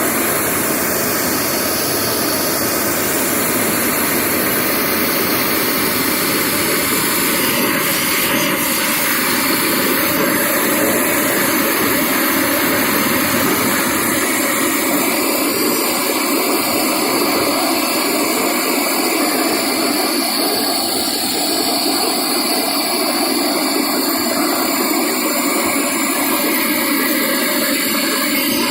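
Propane torch burning steadily: a constant, even rush of flame noise with no breaks.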